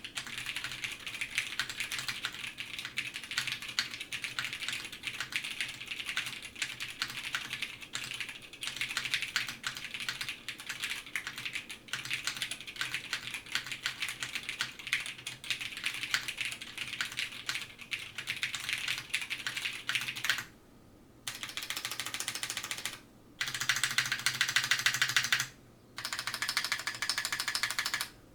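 Steady, fast typing on a custom mechanical keyboard with vintage Cherry MX Brown tactile switches, an FR4 half plate and GMK keycaps: a continuous clatter of keystrokes. The typing pauses briefly three times in the last third, with a burst of denser, louder typing between the second and third pauses.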